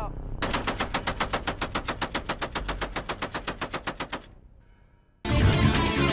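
M2 Browning .50-calibre heavy machine gun firing one long burst, an even string of shots at about nine a second, lasting nearly four seconds and then fading out. Strummed guitar music comes in near the end.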